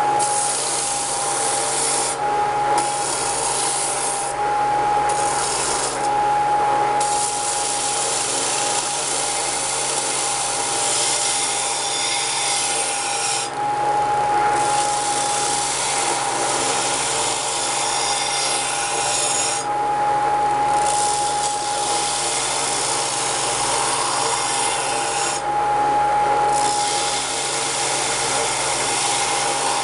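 Belt grinder running with a steady whine while a cable Damascus steel blade is pressed against the belt in long passes, giving a bright grinding hiss. The hiss breaks off briefly about six times as the blade is lifted off the belt. This is the rough grind of the blade.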